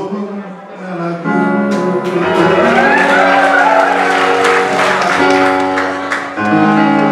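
A man singing through a microphone and PA, his voice wavering over a keyboard accompaniment of sustained chords that change about a second in and again near the end.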